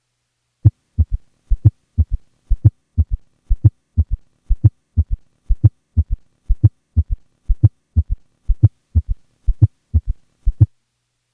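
Recorded heart sounds of a patient with both an S3 and an S4 gallop at 60 beats a minute: low thuds in a repeating four-sound pattern about once a second, S4, S1, S2 and S3, with S2 heard single during expiration. The sounds begin nearly a second in and stop shortly before the end.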